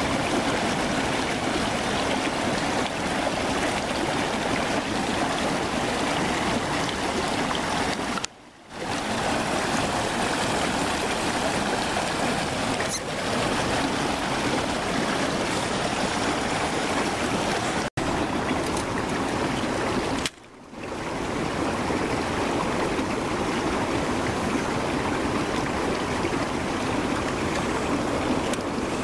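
Steady rushing of running water, like a stream, broken by two brief dropouts about a third and two-thirds of the way through.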